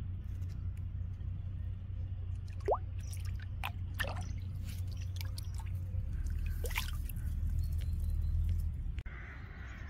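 Water dripping and plopping at the lake surface close by: a few separate drips, one with a quick rising pitch, over a steady low rumble.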